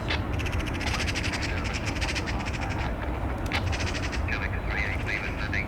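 A bird's harsh, rapid rattling call, a long run of it and a short burst about a second later, over a steady low rumble.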